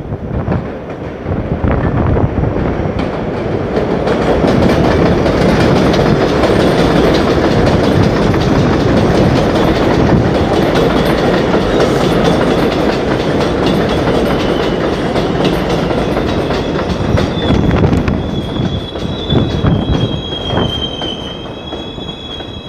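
An R142 subway train running on the elevated steel tracks, its wheels rumbling and clattering more loudly as it draws alongside. From about three-quarters of the way in, a high wavering wheel squeal sets in as the train slows and the rumble eases.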